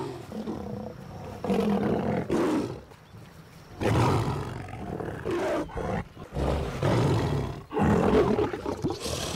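Lions snarling and growling in about five loud outbursts, one after another, with short lulls between.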